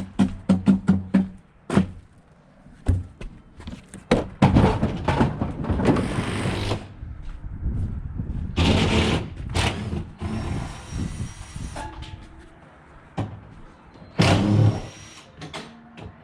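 A quick run of sharp knocks and clatter, then several longer scraping, rumbling stretches of a second or two each. One of them carries a faint high whine. This is heavy metal appliances being handled and moved.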